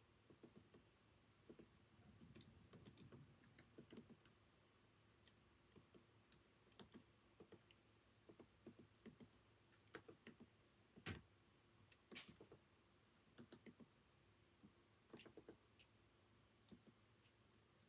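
Quiet typing on a computer keyboard: keystrokes clicking in irregular runs and pauses, with one noticeably louder keystroke about eleven seconds in.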